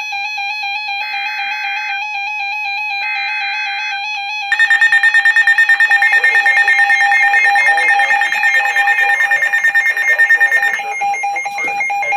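Weather radio emergency alert tones. Three one-second bursts of screeching SAME digital header data come a second apart over a steady warbling alarm tone. From about four and a half seconds a louder alert tone pulses rapidly for about six seconds, signalling the start of a new warning.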